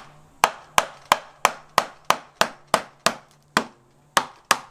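Claw hammer tapping a strip of 3 mm plywood packing down into a crack in a timber butcher's block: a quick, even run of sharp blows, about three a second, with a brief pause shortly before the end.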